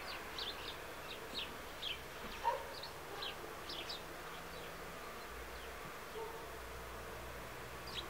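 A flock of sparrows chirping: many short, high chirps, thick for the first four seconds or so and then thinning out, over a faint low hum.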